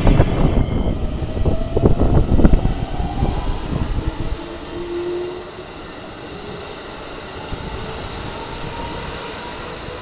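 Keikyu electric train passing through a level crossing at speed: the wheels knock over the rail joints and crossing in a loud clatter for the first few seconds, then the sound settles to a quieter running rumble with a faint motor whine.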